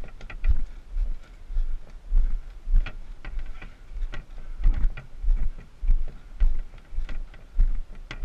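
Footsteps walking at a steady pace on a rocky dirt trail, about two steps a second, each a low thump, with light clicks and knocks from the canoe carried overhead.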